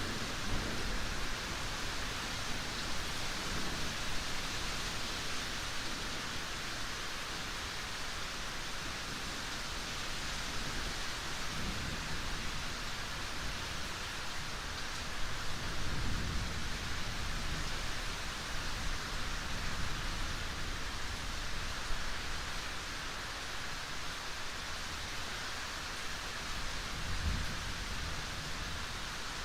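Steady heavy rain, an even hiss, with a few soft low rumbles now and then.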